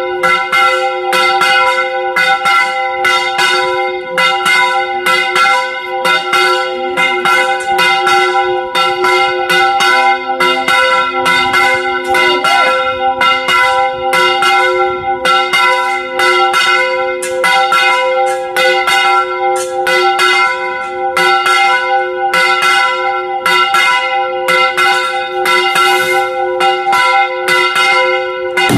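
Church tower bells rung in a rapid repique, with the clapper pulled against the bell by a rope at about three strokes a second. Several bell tones keep ringing over one another.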